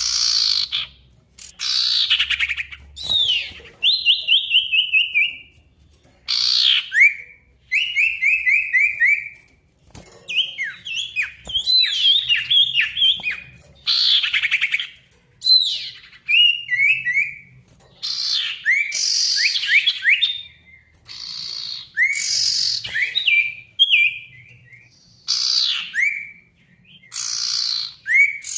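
Male sirtu songbird singing vigorously: loud phrases of about a second or two, made of rapid runs of descending whistled notes and quick rising sweeps, repeated with short pauses between them.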